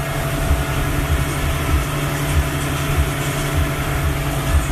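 Suzuki outboard motor driving a speedboat at speed, a steady even drone, with water rushing and churning in the wake behind the boat.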